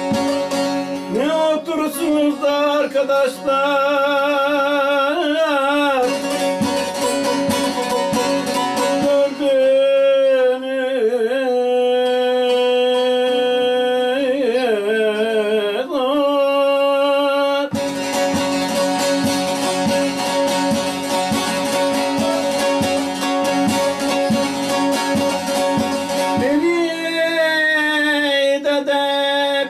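A man sings a Turkish folk song (türkü) in a wavering, ornamented voice, accompanying himself on a bağlama (long-necked saz) whose plucked strings ring throughout. About halfway through, the voice stops and the bağlama plays alone with rapid strokes for several seconds. The singing comes back near the end.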